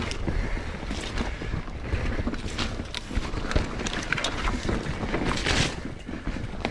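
Mountain bike riding a dirt singletrack: tyres rolling over dirt and roots, with knocks and rattles from the bike over bumps and wind on the microphone. There is a louder hissing stretch about five and a half seconds in.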